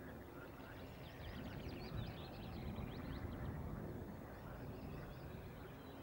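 Outdoor ambience: birds chirping in quick runs of short sweeping notes, over a steady low rumble.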